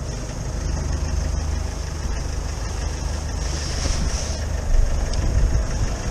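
Motorcycle engine running steadily, with most of its sound in a deep low rumble.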